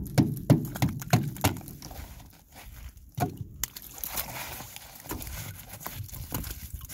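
Ice scraper chipping freezing-spray ice off an aluminum boat's gunwale: a quick run of sharp knocks, two or three a second, for the first second and a half, one more knock about three seconds in, then a softer steady hiss.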